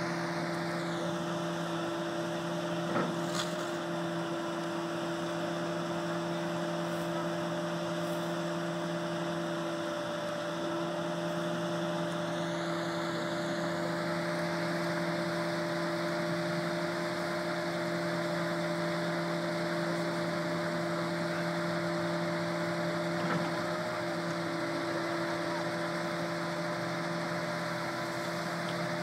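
An engine idling steadily: a constant low hum that never changes pitch, with a faint tick about three seconds in.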